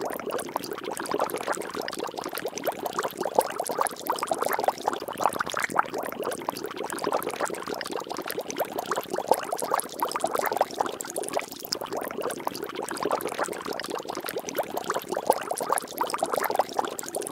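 Water splashing and bubbling continuously: a dense, steady stream of tiny pops and crackles with no letup.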